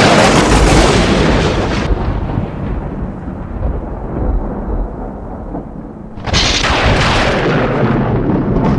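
Sound-effects library rumbling boom, loud at the start and dying away over several seconds, then a second loud rumble begins about six seconds in.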